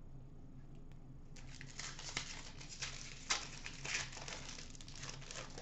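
A hockey card pack being torn open, the wrapper crinkling and ripping in a run of quick tears that starts about a second and a half in, loudest a little past halfway.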